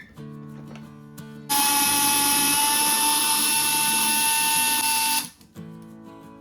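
Electric drill-driver running steadily for nearly four seconds with a constant whine, starting about a second and a half in and stopping abruptly, over background guitar music.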